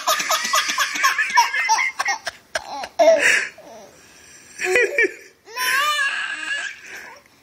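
Eight-month-old baby laughing hard in repeated belly-laugh bouts: a long run of quick laughs in the first two seconds, then shorter fits about three, five and six seconds in.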